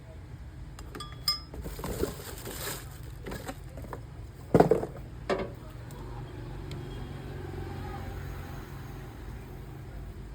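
Handling sounds: a short ringing metallic clink about a second in, some rustling, then a sharp knock about four and a half seconds in and a lighter one just after, over a steady low hum.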